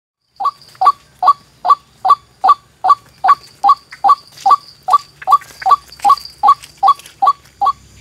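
White-breasted waterhen (ruak-ruak) calling: a loud, even run of short, identical notes, about two and a half a second, starting about half a second in.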